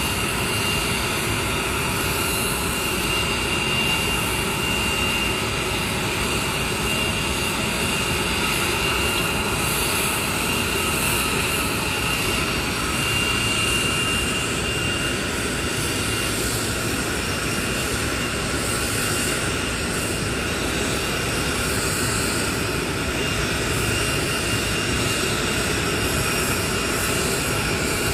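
Steady jet aircraft engine noise: an even roar with a constant high whine.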